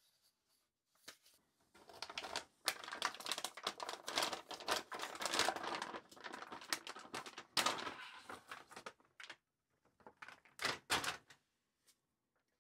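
Crinkling and crackling of a metallised anti-static bag being handled and pulled off a graphics card, a dense run of crackles for several seconds, then two short rustles near the end.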